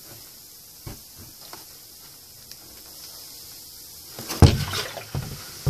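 A few knocks and thumps of things being handled on the tabletop close to the microphone: one small knock about a second in, then a loud cluster of thumps a little past four seconds in and one more at the end.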